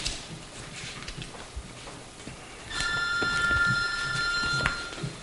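A steady electronic tone with two main pitches sounds for about two seconds about midway through, over the rustle and light knocks of papers being handled.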